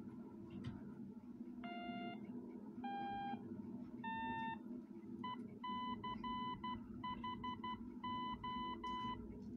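A Baofeng handheld radio's speaker plays an STM32 and SI4432 CW beacon received on 433.5 MHz. First come three short tones stepping up in pitch, then a steady beep keyed on and off in Morse code dots and dashes, over a low hum.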